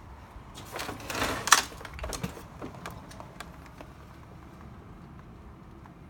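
Rustling and scraping about a second in, ending in one sharp knock, then a few faint clicks over a low steady hum: objects being handled.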